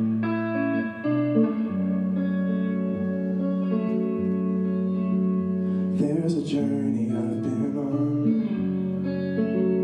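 Stratocaster-style electric guitar played through an amplifier, with chords ringing out and changing every second or two.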